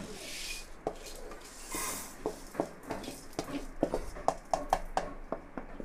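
Dry-roasted lentils, red chillies and whole spices being tipped from a metal pan into a steel bowl and scraped out with a wooden spatula: two short rushes of rattling seeds, then a run of light taps and scrapes of wood on metal.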